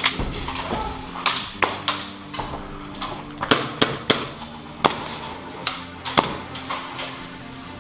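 Airsoft guns firing single shots: about nine sharp cracks at uneven intervals, over a steady low hum.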